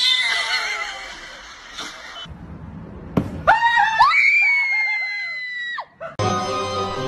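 A loud high-pitched scream that rises and falls several times and ends in a long held high note, lasting about two and a half seconds; background music starts just before the end.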